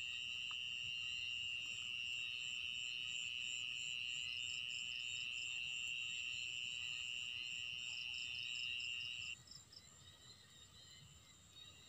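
Night insects, crickets: a steady high trill that cuts off suddenly about nine seconds in, with a fainter, faster pulsing chirp from another insect above it.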